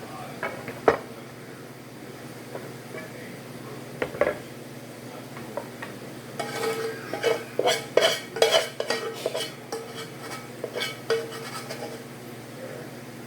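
Kitchen utensils clinking and scraping against cookware: a couple of single knocks, then a busy run of ringing clinks and scrapes in the middle of the stretch that dies away near the end.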